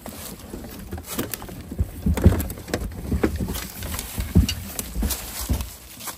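Irregular dull thumps and metal knocks from an Owens aluminum diamond-plate dog box as its door latch is worked and the dogs inside shift about.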